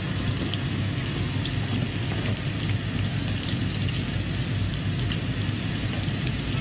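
Bitter gourd (karela) slices frying in oil in a frying pan, sizzling with a steady crackling hiss as a spatula stirs them, over a steady low hum.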